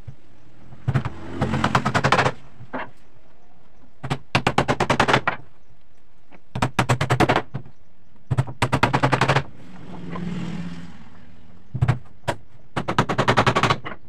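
Hammer rapidly tapping nails into a plywood sheet: quick runs of about eight sharp strikes a second, each run lasting around a second, with short pauses between them.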